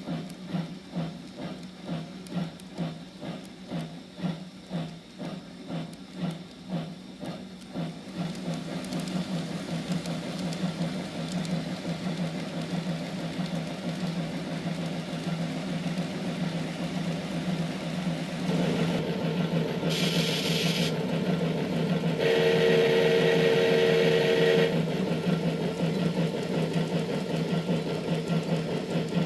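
A model railway sound box plays steam-locomotive effects over a running KATO model train. Rhythmic chuffing at first, about one beat a second, blends into a steady run about eight seconds in. Near two-thirds of the way in comes a short burst of steam hiss, then a steam whistle blown for about two seconds, with the model's steady motor and wheel hum underneath.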